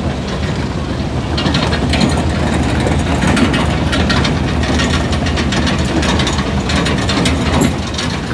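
1955 Chevrolet convertible's engine running as the car creeps past at low speed, with a dense, rapid ticking clatter over the engine hum.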